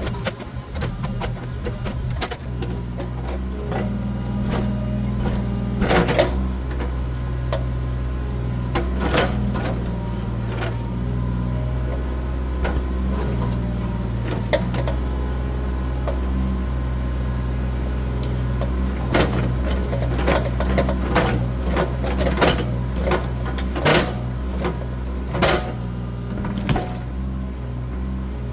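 John Deere 26G mini excavator's diesel engine running under changing hydraulic load while digging out a tree stump, with sharp knocks and clanks from the bucket and roots, several in quick succession in the second half.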